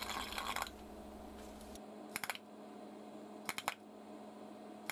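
Sparks from a homemade resistor-capacitor EDM machine crackling and snapping between a graphite electrode and an aluminium-alloy workpiece. A dense crackle comes first, then short clusters of sharp snaps about two seconds in and again around three and a half seconds, over a steady low hum.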